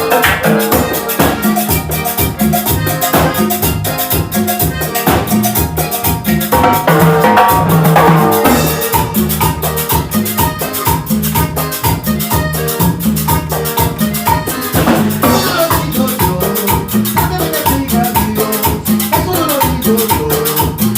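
Salsa band playing an instrumental passage with no singing: percussion and bass under a short, repeating melodic figure.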